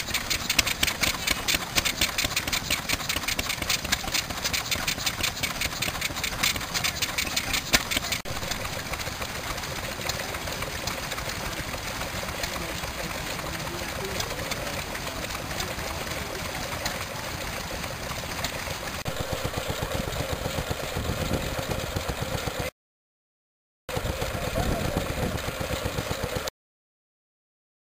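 Vintage single-cylinder stationary engines running one after another, each with a fast, even exhaust beat. There are two brief breaks of silence near the end.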